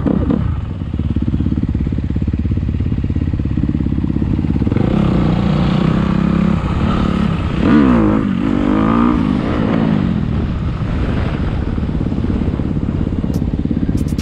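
Dirt bike engine running as it rides, heard from on the bike, revving up and down a few times about halfway through.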